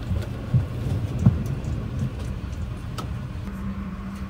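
Plastic tray table being unfolded out of an airliner seat's armrest: a couple of dull knocks and a sharp click over the steady hum of the Boeing 777-300ER cabin.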